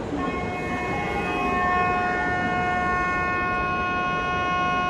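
A train's horn sounding one long steady blast of several notes at once. It starts just after the beginning and holds for about five seconds over the rumble of the station.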